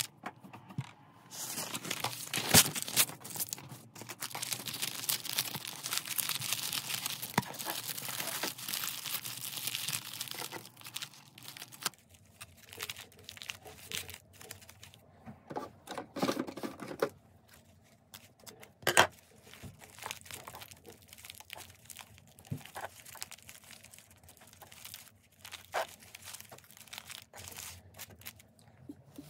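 Kraft paper and honeycomb kraft wrapping paper rustling and crinkling as a small parcel is wrapped by hand. The first part is a dense stretch of crinkling; later the handling is sparser, with a few sharp taps.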